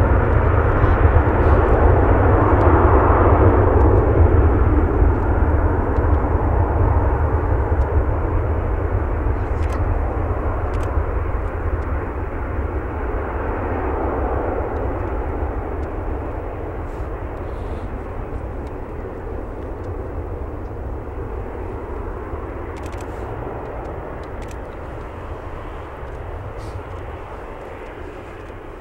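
Airbus A330-200's twin GE CF6-80E1 turbofans at takeoff power: a deep rumble and roar from the jet on its takeoff roll, loudest as it passes and fading steadily as it pulls away down the runway toward liftoff.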